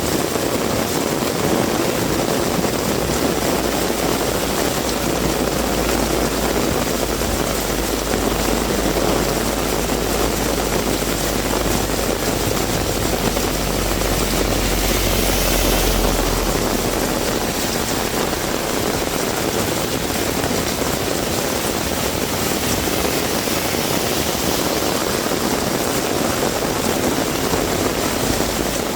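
Heavy rain falling steadily. A low rumble swells from about a second in and cuts off about halfway through, with a brief hiss at its peak.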